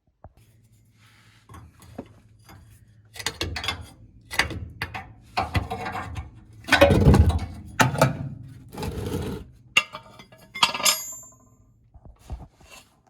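Metal tools and parts clinking, clanking and scraping in a run of irregular knocks, loudest about seven seconds in, with one ringing metal clank about eleven seconds in.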